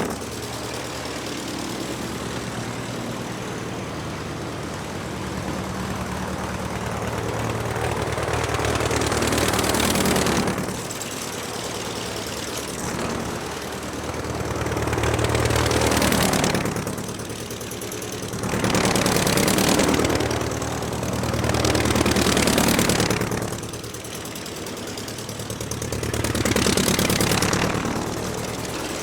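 Aircraft engine running, ticking over steadily and swelling louder about five times as it is briefly revved, each time falling back to idle.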